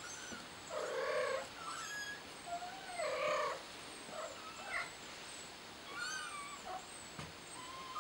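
Kitten meowing over and over, two longer, louder calls followed by several shorter, higher ones: a scared kitten calling out for its mother.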